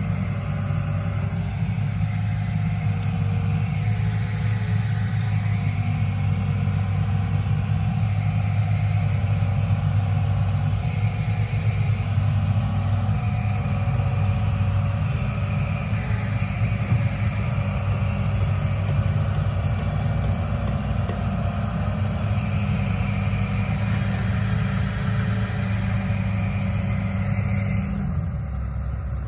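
Hitachi Zaxis 210 amphibious excavator's diesel engine running steadily under load as the arm and bucket work. The engine note dips briefly near the end.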